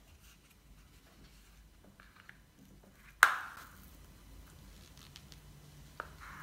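Soft butter being scooped with a spatula from a plastic tub into a ceramic mixing bowl: quiet scraping and handling, with one sharp knock a little over three seconds in and a small click near the end.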